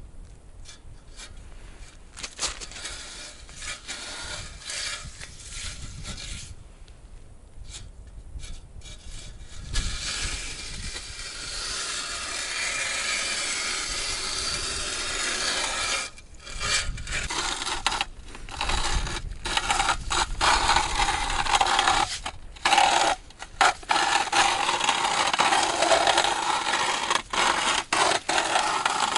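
Ice auger blades cutting into lake ice as a fishing hole is drilled out wider: a steady scraping rasp that sets in about a third of the way through and grows louder, with a few short breaks.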